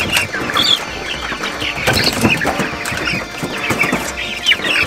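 Young white meat chickens (broilers) peeping and clucking in many short high calls, with wing flaps and scrabbling as they are lifted out of a plastic crate.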